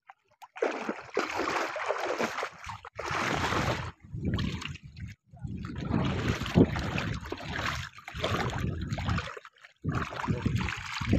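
Shallow water splashing and trickling as a collapsible ring-net fish trap is moved and lifted through it, in irregular stretches with short breaks.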